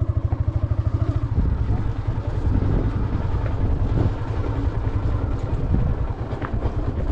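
Motorcycle engine idling with an even low thudding, then about a second and a half in it picks up and runs on with a denser, steadier low drone as the bike gets going.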